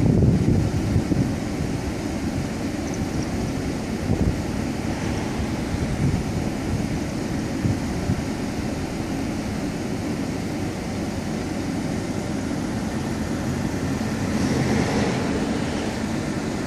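Wind buffeting the microphone over a steady low rumble, with gusts that swell now and then, strongest near the start and again near the end.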